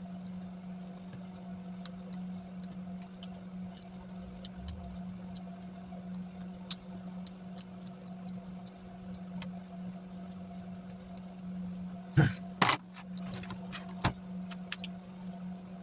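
Light clicks and taps of laptop parts being handled, with two louder knocks about twelve seconds in and one more shortly after, over a steady low hum.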